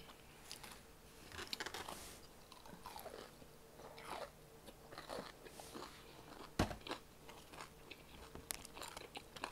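Crunching bites and chewing of fried chicken wings, a run of small crackly clicks. One sharp click about six and a half seconds in stands out as the loudest sound.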